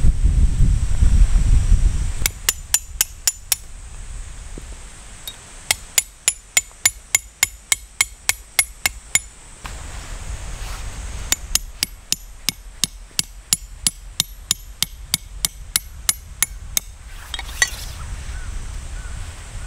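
Metal peg hammer driving a tent stake into stony ground: three runs of sharp, ringing metal-on-metal strikes, about three to four a second. Gusty wind buffets the microphone in the first couple of seconds.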